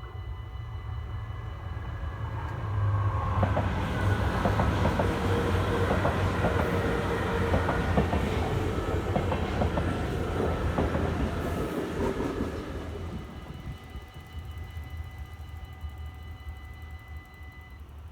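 An SGMm Sprinter electric multiple unit passing over a level crossing, its wheels clicking over the rail joints, loudest from about three to twelve seconds in before fading away. The crossing bells ring steadily throughout.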